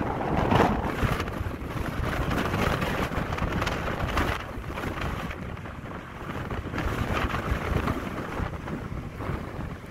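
Gusty wind buffeting the microphone, strongest about half a second in, over the low rumble of a large oil tanker passing close by.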